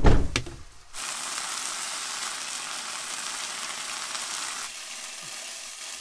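A heavy thump as the van's side door is shut, then chicken pieces sizzling steadily in an oiled frying pan on a gas burner as they brown, stirred with a spatula.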